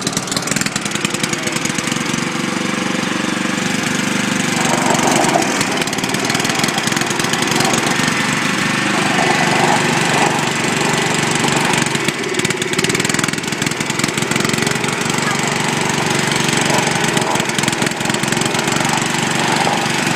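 Small single-cylinder lawn tractor engines, a John Deere L110's and a Dynamark's, running steadily while the two riding mowers pull against each other; the sound grows a little louder about four seconds in.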